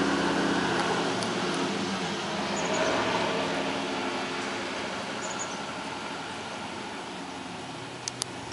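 A road vehicle passing, its broad engine and tyre noise fading away. A few faint high chirps come every couple of seconds, and two sharp clicks sound near the end.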